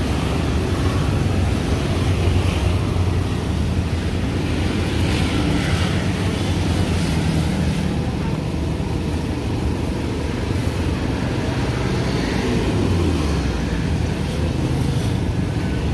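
Steady low rumble of road traffic going past, with some wind noise on the microphone.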